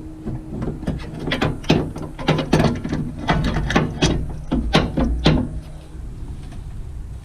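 Irregular clicks and clanks of hand tools and suspension parts being handled, about a dozen over the first five seconds, then they stop.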